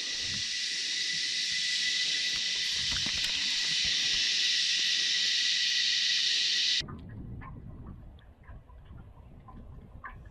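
A steady high-pitched hiss with a constant thin whine through it, cutting off abruptly about seven seconds in; after that only faint scattered ticks and clicks over a low rumble.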